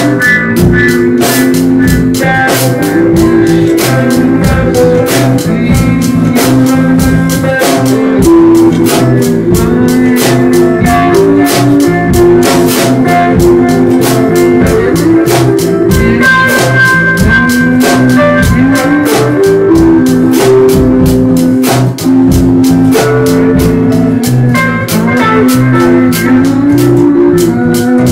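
A band playing live: a drum kit keeps a steady beat under electric guitar and bass guitar.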